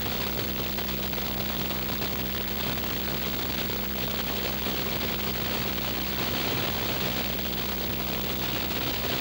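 Cessna light aircraft in steady cruise: an even engine and propeller drone with constant wind hiss over the airframe.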